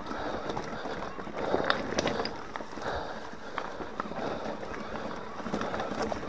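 Mountain bike rolling down a rocky trail: the tyres crunch over loose stones under a steady rush of noise, with frequent short clicks and knocks as the bike rattles over the rocks.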